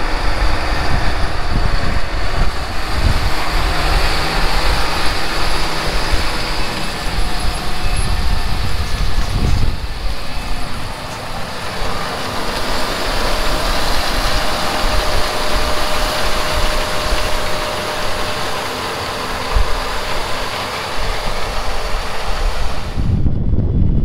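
John Deere 8370RT track tractor's diesel engine running as it pulls a Kinze 1500-bushel grain cart past on rubber tracks: a steady, loud machine noise. About a second before the end it cuts abruptly to a duller low rumble.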